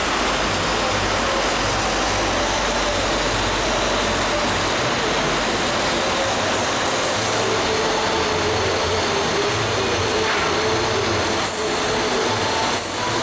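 Steady hiss of a TIG (gas tungsten arc) welding arc burning on a pipe joint, with a faint wavering whine underneath.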